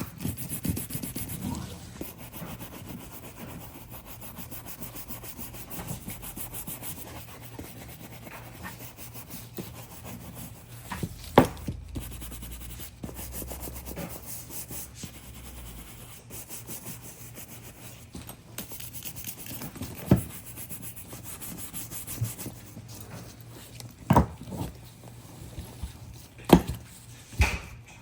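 Horsehair brush stroked back and forth over a conditioned leather handbag to buff it, a steady scrubbing rub. Now and then a sharp knock rises above it, several times in the second half.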